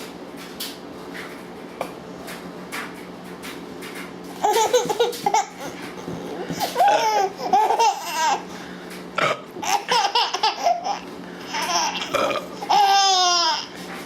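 High-pitched young child's laughter in repeated fits, starting about four seconds in after quiet room noise with a steady hum. Near the end comes one long falling squeal of a laugh.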